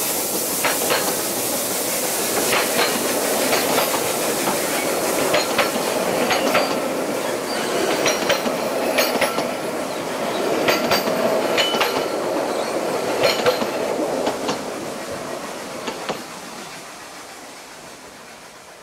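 Narrow-gauge steam railway carriages rolling past close by, a steady rumble with wheels clicking and clattering over the track. The sound fades away over the last few seconds as the train goes off.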